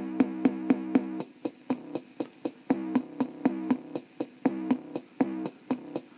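Electronic bass-test music playing through the built-in speaker of an Orion VHS combo CRT TV: an even beat of sharp hits, about four a second, over repeating bass notes.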